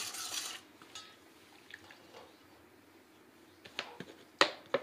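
Stainless steel kitchenware being handled. A short hissy rustle comes at the start, then a few faint clinks, and several sharp clinks of steel bowls and utensils near the end.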